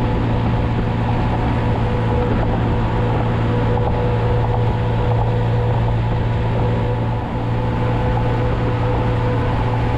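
2020 Honda Monkey's 125 cc air-cooled single-cylinder four-stroke engine running at a steady cruising speed, with wind and road noise over the microphone. The drone dips briefly about seven seconds in.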